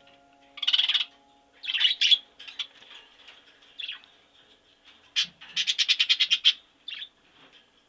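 A bird calling: a few short, high-pitched chirping calls, then near the end a quick run of about a dozen notes and one last call.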